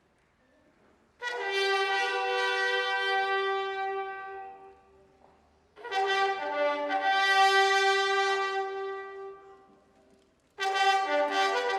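Brass instruments playing three long sustained notes or chords, separated by short pauses, the first beginning about a second in.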